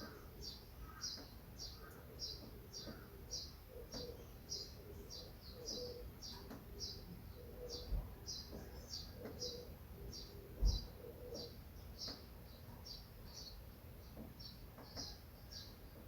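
A bird repeating a short, high chirp about two to three times a second, steadily, with two low thumps about eight and eleven seconds in, the second the louder.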